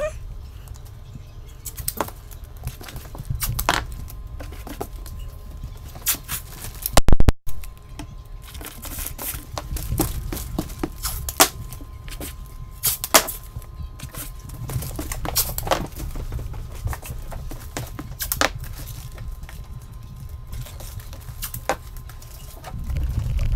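Masking tape pulled off a roll and torn into short pieces, then pressed down along a cabinet base onto Grip Rite floor underlayment, which crinkles under hands and knees: a string of irregular crackles and clicks. A single loud knock about seven seconds in.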